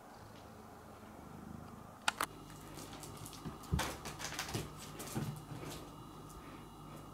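A cat purring low at first. Then, about two seconds in, a run of knocks, thumps and scrapes as a cat grapples and kicks a stuffed kicker toy across a wooden floor, loudest near the middle and tailing off near the end.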